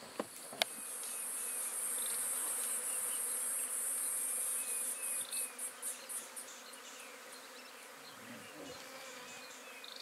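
A high-pitched insect drone that swells in about a second in, holds steady, then breaks into a run of quick pulses and stops a little past halfway. A single sharp click comes just before the drone begins.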